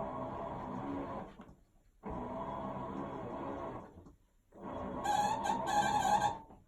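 Sharp ES-GX8A washing machine running in strokes of about two seconds with short pauses between them, three times, each stroke carrying a whine; the whine is strongest and highest in the third stroke. This whine is the abnormal noise the machine developed after about a year and a half of use.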